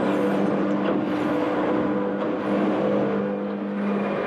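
Twin Honda outboard motors running steadily at high speed, a constant even drone, over the rush of water from the boat's wake.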